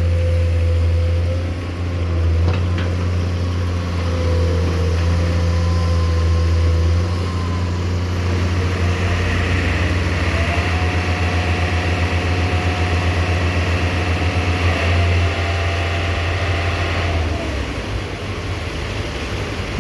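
Komatsu PC210 hydraulic excavator's diesel engine running steadily, with higher hydraulic whining tones that step up and down in pitch several times as the machine is worked, and a hissing band joining for several seconds in the middle.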